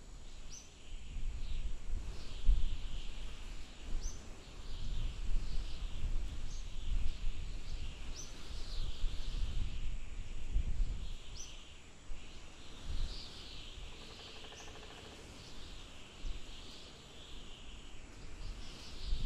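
Small birds twittering and chirping, with one short high call note repeated every second or two, over a low wind rumble that swells and fades in gusts.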